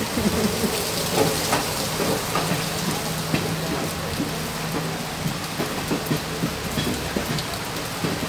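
Moving train heard from an open carriage doorway: a steady rushing noise with a low steady drone underneath and scattered knocks.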